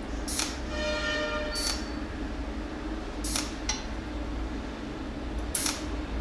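Cold-welding machine firing single spot-weld pulses through its tungsten electrode, five sharp snaps at uneven intervals over a steady low hum.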